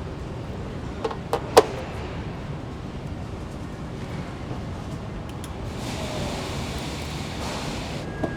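Car assembly plant ambience: a steady machinery rumble with three sharp metallic clanks in quick succession about a second and a half in, the last the loudest, and a hiss swelling later on.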